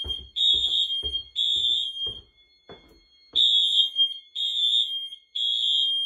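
Fire alarm sounder beeping in the temporal-three (code 3) evacuation pattern: three high beeps of about half a second each, a pause of over a second, then three more. Footsteps thud about twice a second under the beeps for the first three seconds.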